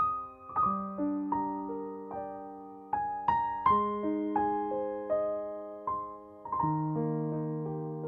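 Background music: a slow solo piano piece, single notes struck one after another and left to ring over lower held notes.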